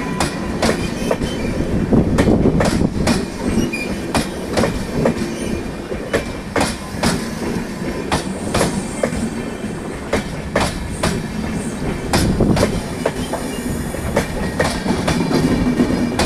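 Passenger express train rolling past, its coach wheels clattering over rail joints in a steady run of uneven clicks.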